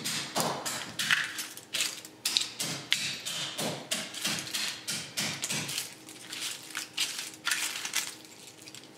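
Wooden mallet pounding cooked crab shells on newspaper over a stone countertop: a string of sharp cracking knocks, about two or three a second, crushing the shells into small pieces. The knocks thin out near the end.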